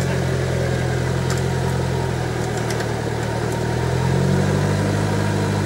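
Toyota Land Cruiser's engine running at low revs while the truck crawls up a rutted track on winch cable; the revs sag slightly about two seconds in, then rise about four seconds in.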